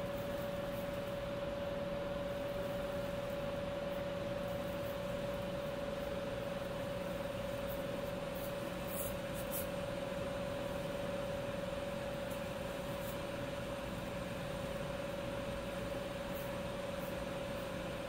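Steady hum of facility ventilation and machinery: an even rush of air with a constant mid-pitched tone under it, and a few faint ticks about halfway through.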